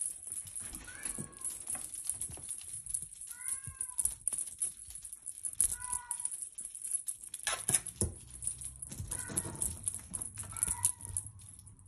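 Short, high-pitched cat mews, about five of them spaced a couple of seconds apart, over light clicks and rustling.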